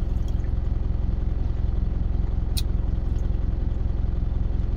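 Truck engine idling steadily, heard from inside the cab. It has been left running for a short cool-down after highway-speed driving. A single brief click comes about halfway through.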